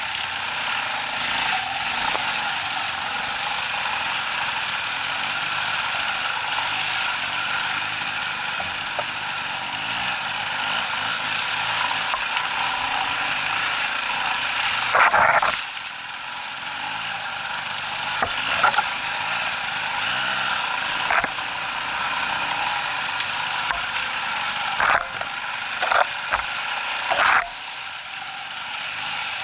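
Off-road motorcycle engine running, under a steady hiss, with several sharp knocks in the second half.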